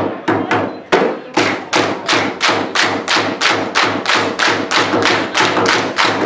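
Dikir barat troupe clapping in unison, settling about a second in into a fast even beat of about three claps a second, with drum thumps under each clap.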